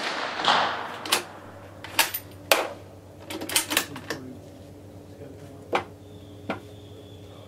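The echo of a rifle shot fading away, then the bolt of a Carcano M38 6.5 mm short rifle being worked by hand: a series of sharp metallic clicks and clacks, with a quick cluster of them about three to four seconds in.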